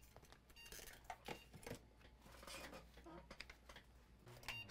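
Near silence, with faint scattered clicks and rustles as a handheld digital multimeter and its test leads are picked up and set down on the workbench.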